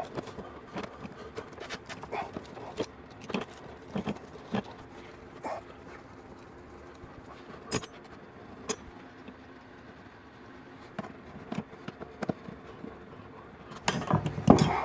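Scattered clicks, creaks and small knocks of a No. 2 square-drive hand screwdriver backing a long screw out of a wall bracket, with a denser, louder run of clicks near the end.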